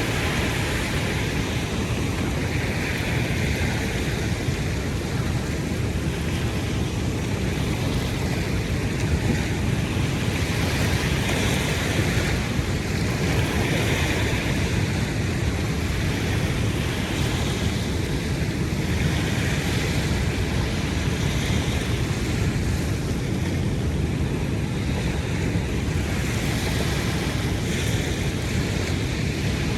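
Ocean surf washing onto a beach, swelling and easing every few seconds, over a steady low rumble of wind on the microphone.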